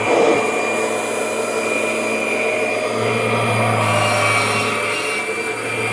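2001 Kirby Generation 6 upright vacuum running steadily: a constant motor whine over airflow noise, with a low hum that fades and comes back about halfway through.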